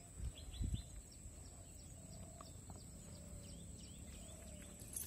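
Birds chirping, faint and repeated: many short, quick calls in a steady outdoor background, with a few low thumps about half a second in.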